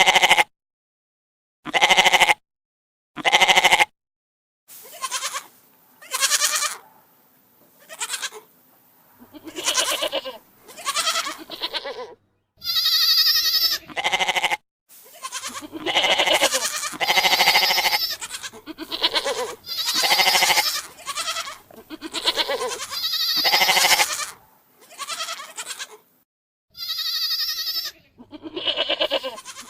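A series of goat bleats, about twenty separate calls of varying pitch and length, most lasting under a second and a few held longer with a wavering tremble.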